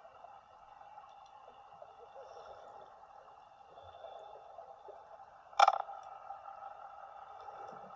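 Underwater ambience picked up by a camera below the surface: a steady hiss with faint steady tones above it. One sharp click comes about five and a half seconds in.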